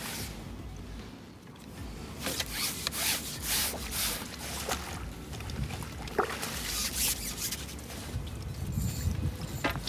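A hooked fish splashing and thrashing at the surface for a few seconds, starting about two seconds in, as it is drawn over a landing net. Two sharp clicks follow, one around the middle and one near the end.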